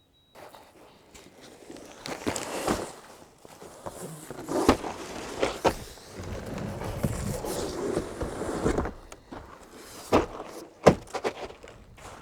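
Footsteps and handling noise broken by a series of sharp knocks and thuds, the loudest a little before the end.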